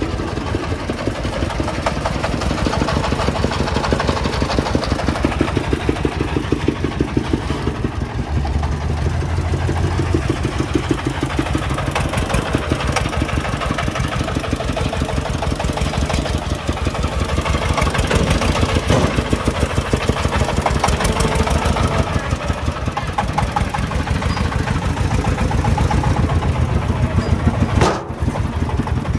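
Single-cylinder diesel engine of a homemade three-wheeled công nông tipper truck running hard with a steady, rapid chugging rhythm while the truck tips and drives its load of soil.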